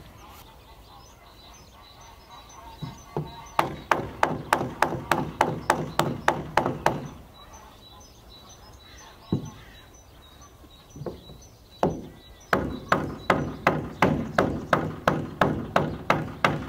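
Hammer blows on an OSB floor panel, about four a second in two quick runs with a few single knocks between, driving the panel sideways so its tongue-and-groove edge closes up against the neighbouring panel.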